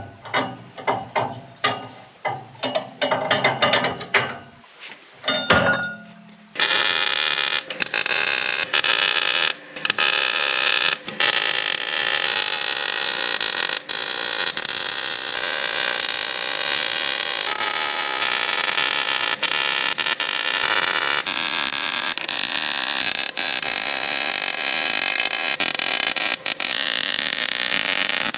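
Knocks and clatter of metal tubing being handled. About six and a half seconds in, an electric arc welder starts welding stainless-steel tube with a steady, loud buzz, stopping briefly a few times.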